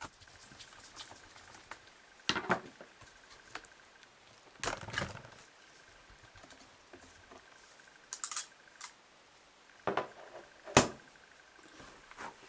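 Scattered clicks, taps and small knocks of screws and plastic panels as a laptop's underside is taken apart by hand: a screwdriver backing out the hard-drive cover screws and the cover being lifted and handled. The knocks come singly, a second or more apart, the sharpest near the end.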